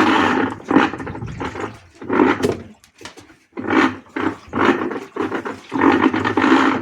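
Electrolux LA15F direct-drive inverter washing machine running with a loud, rough rumbling noise that comes in repeated bursts about once a second over a steady low hum. The technician traces it to a worn clutch (drive coupling) that does not engage fully and stays halfway, causing the noise.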